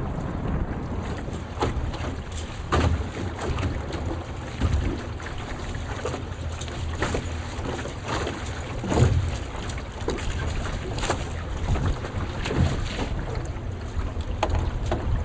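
Wind buffeting the microphone: a steady low rumble broken by many irregular crackles and thumps as gusts hit.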